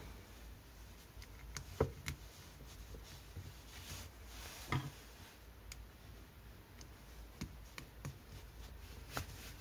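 Faint handling clicks and light knocks of a plastic mains plug and its wires being worked by hand: a few sharp ticks about two seconds in, another near five seconds and one near the end.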